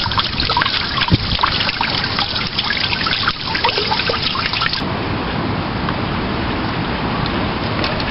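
Water of a small river running and trickling: a steady rushing hiss with many small splashing crackles, smoothing out about halfway through.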